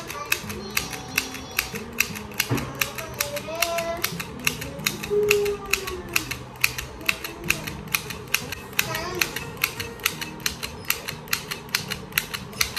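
Handheld mini sewing machine clicking with each squeeze as it stitches through cloth, in a steady rhythm of about four clicks a second.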